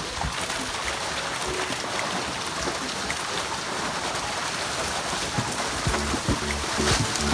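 Steady splashing and hissing water as a fish-cage harvest net is hauled up, with small scattered ticks. A low hum joins about six seconds in.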